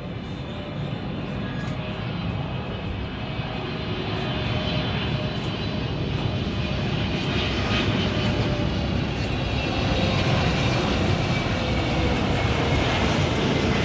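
Boeing 777-300ER on final approach with its landing gear down, its twin GE90 turbofans running: a jet rumble with a faint whine on top, growing steadily louder as the airliner comes nearer.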